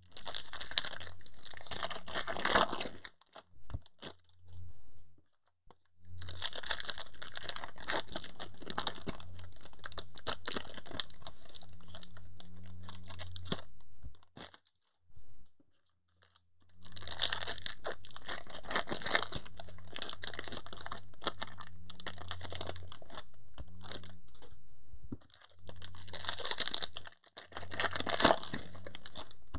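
Foil trading-card pack wrappers crinkling and tearing as packs are opened by hand. The crinkling comes in several bouts with short pauses between.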